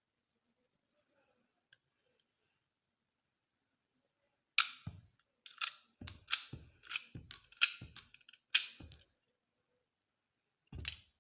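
Pistol firing a quick string of about ten shots, starting about four and a half seconds in, then one more shot near the end after a pause of nearly two seconds.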